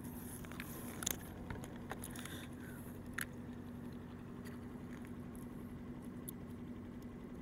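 Scattered small clicks and light rattles from hands working a hook rig out of a halibut's mouth, over a steady low hum.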